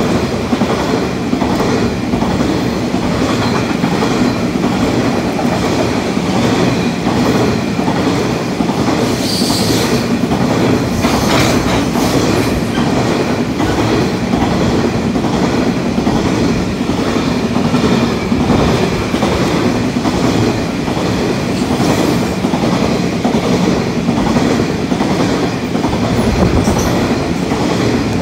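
Grain hopper wagons of a freight train rolling past at speed, their steel wheels clicking in a fast, regular rhythm over the rail joints.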